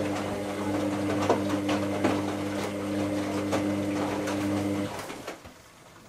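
Hoover AC158 Classica 1000 washing machine's drain pump humming steadily with some clicking and gurgling while the drum stands still, then cutting off abruptly about five seconds in.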